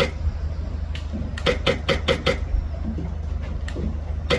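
Airsoft gun firing sharp shots: one at the start, another about a second in, a quick string of five at about five shots a second midway, and one more near the end, over a steady low rumble.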